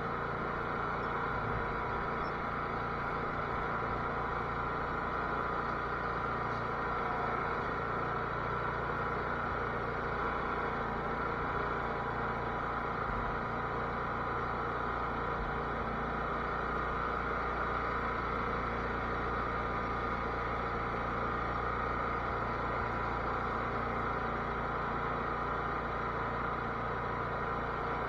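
Cub Cadet lawn tractor engine running at a steady speed, a constant drone with no change in pitch.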